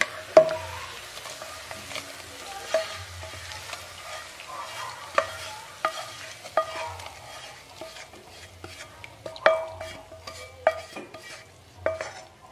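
A spoon knocking and scraping against a frying pan as oil-fried shallots, garlic, lemongrass and leaves are spooned onto soaked rice, with faint sizzling. Each knock rings briefly with one clear tone, and the knocks come more often near the end.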